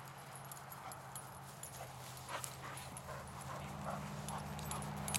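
A dog giving a run of short, high whimpers over a steady low hum that grows louder toward the end.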